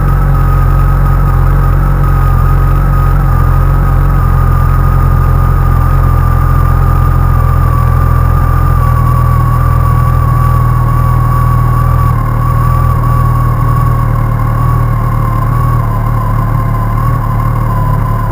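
Honda CBR1100XX Super Blackbird inline-four engine idling steadily after a cold start, with its cam chain tensioner freshly replaced. The idle eases down slightly over the stretch.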